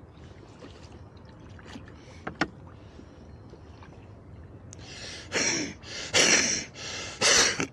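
Rowboat oars pulling through the water: three splashing strokes about a second apart, starting about five seconds in, after a quiet stretch broken by a single click.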